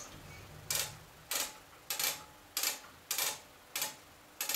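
Cast-iron 5C indexer's spindle turned by hand, its ratchet mechanism clicking at an even pace, about one click every 0.6 seconds, starting a little under a second in.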